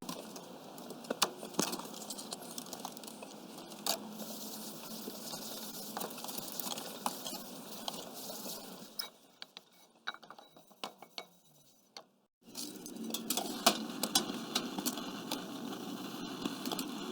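Clinks and scrapes of a cast iron pan being handled, over a steady hiss. The hiss falls away for a few seconds about two-thirds of the way through, then cuts back in.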